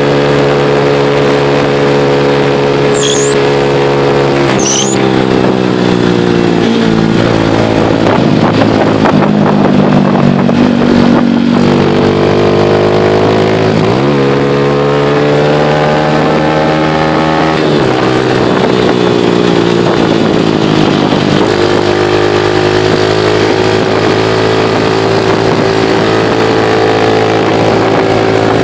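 Motorcycle engine heard from on board while riding, its pitch dropping and rising several times as the rider changes gear and eases on and off the throttle, over a steady rush of wind.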